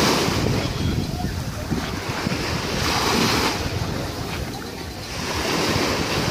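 Small waves breaking and washing up on a sandy beach, the hiss swelling and fading about every three seconds. Wind buffets the microphone underneath.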